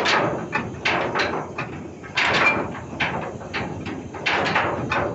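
Ship's anchor chain clanking heavily as it is let go, a string of irregular metallic knocks, one or two a second, each with a rattling tail.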